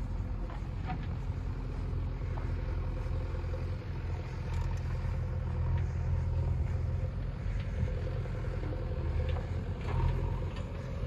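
A motor vehicle engine running steadily with a low rumble, carried over an unpaved dirt road.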